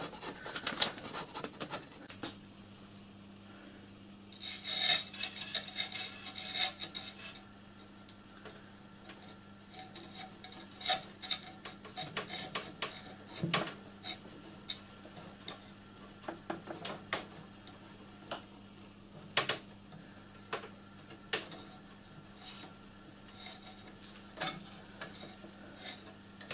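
Scattered light metallic clinks, taps and rubbing from hands working a thin feed pipe through the steel frame tube of a miniature-railway riding car, with a spanner held at the frame plate. A burst of louder clinks comes about five seconds in.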